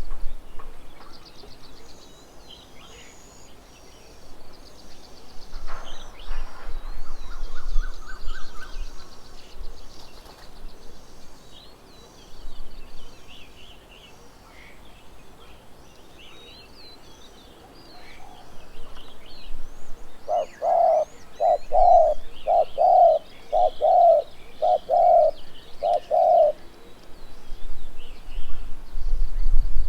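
Birds calling at a feeding table: small birds chirping and twittering throughout, a short rising run of notes about six seconds in, and from about twenty seconds in a louder run of eight low, evenly spaced notes, each lasting about half a second.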